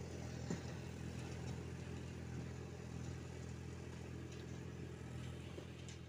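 Tractor diesel engine running steadily while pulling a rotavator through dry soil, a low even hum with a couple of faint clicks.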